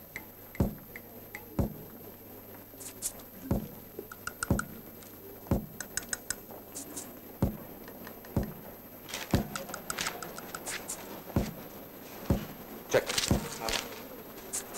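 Film soundtrack with a low, drum-like thud about once a second, under scattered light clicks and short high notes.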